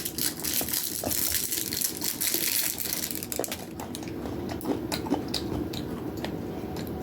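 Plastic cookie packaging crinkling and rustling as it is handled, with a dense rustle for the first few seconds and then scattered crackles and clicks.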